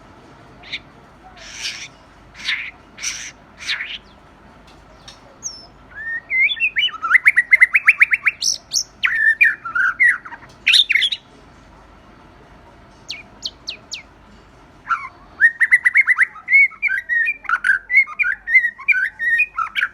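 White-rumped shama singing: a few short, separate notes, then two long, loud phrases of fast repeated bubbling notes mixed with whistles. This is the rattling 'water-pipe' song that keepers call kéo thuốc lào.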